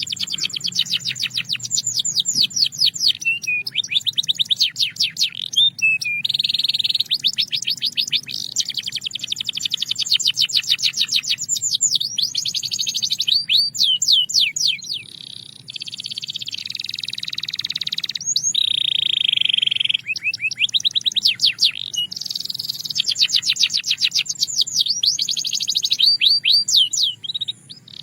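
Belgian canary singing a continuous high-pitched song of fast trills of repeated sweeping notes, with a few longer, steadier rolls and short breaks between phrases.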